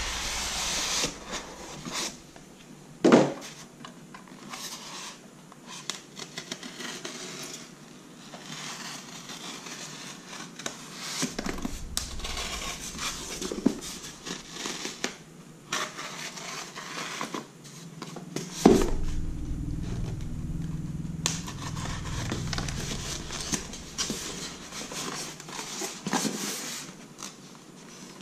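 Cardboard and foam packaging being handled and opened: irregular rustling and handling noise, with two sharp knocks, one about three seconds in and one near nineteen seconds.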